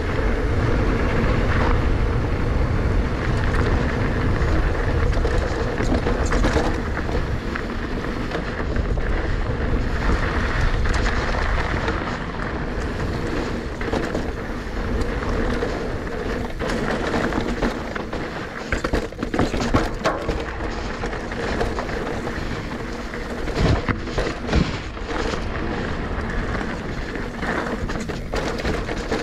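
2019 Giant Trance E+ 2 electric mountain bike riding downhill on a dirt trail: wind buffets the microphone and the tyres and frame rattle steadily. The wind rumble is strongest in the first half, and a cluster of sharp knocks from bumps comes past the middle.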